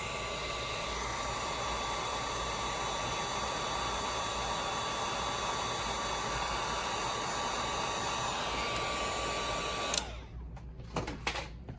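Heat gun blowing steadily, a rushing hiss with a thin steady whine, cut off about ten seconds in. It is heating the bottom of the phone to free the loudspeaker.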